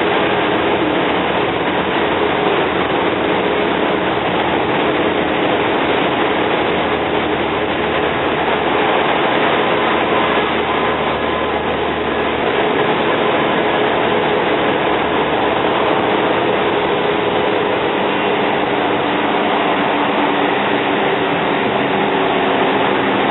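Cummins L10 diesel engine of a Volvo Olympian double-decker bus heard from on board, running steadily under way, its hum mixed with loud, even road and ride noise.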